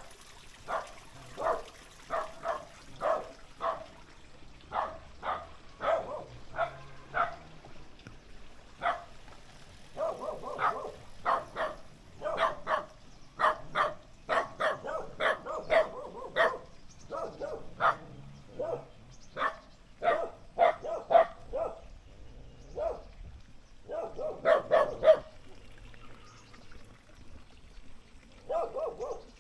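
Several dogs barking at a stranger walking past, short sharp barks coming a few a second in irregular runs, with a couple of brief lulls.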